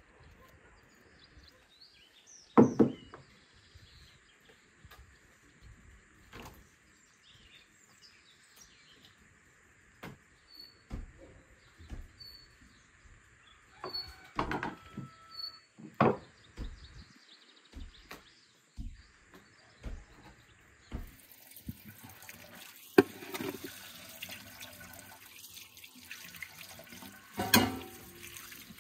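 Scattered sharp knocks and thuds, some from a knife on a wooden cutting board, with a few short bird chirps. About two-thirds of the way through, water starts running from an outdoor tap onto vegetables in an enamel bowl, with splashing and a couple of louder knocks.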